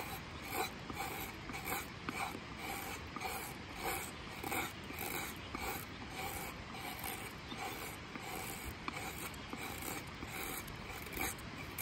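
Kestrel crooked knife taking shavings off an old-growth redwood blank in repeated short scraping strokes, a little under two a second, cutting easily. A creek rushes steadily underneath.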